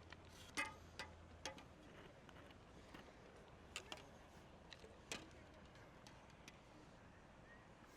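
Near silence broken by scattered faint clicks and taps of fishing tackle being handled while a small carp is landed. There are about a dozen of them, irregular, and the loudest comes about half a second in.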